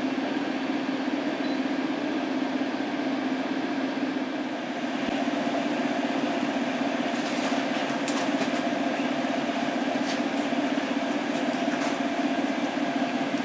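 Steady mechanical drone with a low hum, unbroken throughout, with a few faint ticks in the second half.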